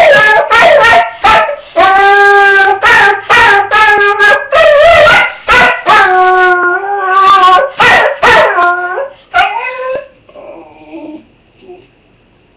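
Small Pomeranian-type dog crying in a string of loud howls and short yips, the distress of a dog left alone by its owner. The calls stop about ten seconds in, leaving a few faint whimpers.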